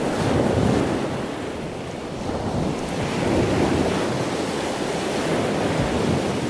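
Waves washing on open water, with wind buffeting the microphone. The wash swells and eases in slow surges.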